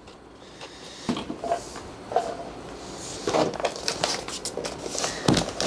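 Cardboard and moulded-pulp packaging being handled, with scattered light knocks and scrapes, then the rustle of the laptop's thick wax-paper-like wrapping in the second half.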